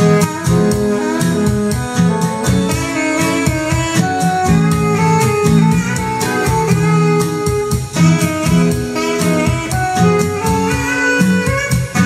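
Instrumental stretch of a pop song, guitar over a steady drum beat with no singing, played back through Sony SS-F6000P three-way floor-standing speakers.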